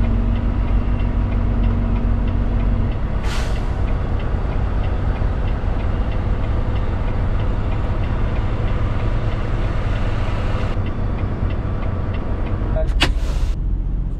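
Semi-truck diesel engine running with a steady low rumble, heard from around the cab. About three seconds in there is a short hiss of air, like the truck's air brakes, and a few sharp clicks come near the end.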